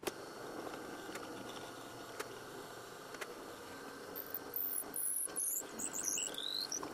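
Drill press boring a hole into a wooden knife-handle block, the bit cutting steadily, with short high squeaks and chirps from the bit in the hole in the second half.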